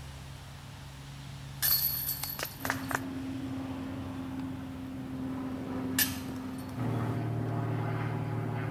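Metallic clinks of disc golf basket chains struck by putted discs, three times, each a brief jangle ringing high, the first the longest. A steady low hum runs beneath and changes pitch twice.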